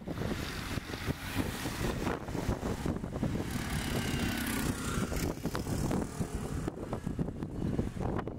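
Wind rumbling on the microphone, with a motor vehicle passing and a faint engine whine around the middle.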